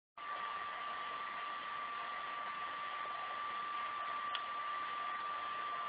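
Steady hiss with a thin whine held on one pitch, and a single faint tick about four seconds in.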